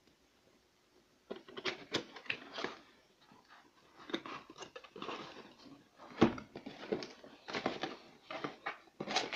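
Hands opening a printed cardboard figure box: the end flap scraping and rustling as it is pulled open, with taps and knocks of fingers on the cardboard. It starts about a second in, and a sharper knock comes about six seconds in.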